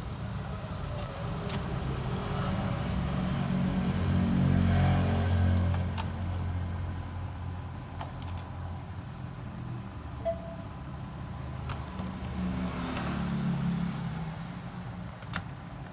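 Screws being driven back into a laptop's bottom case, heard as a handful of sharp, isolated clicks of screwdriver and screws. Under them runs a low rumble that swells twice.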